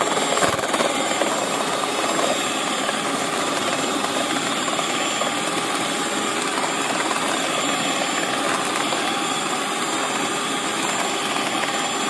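Electric hand mixer running steadily, its beaters whirring through butter and sugar being creamed in a stainless steel bowl.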